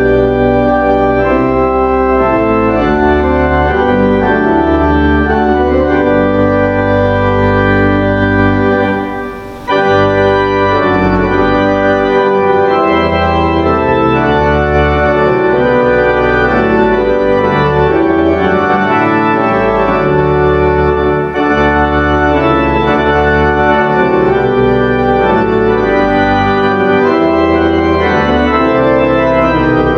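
Church organ playing full, sustained chords that change every second or two, with a short break between phrases about nine seconds in.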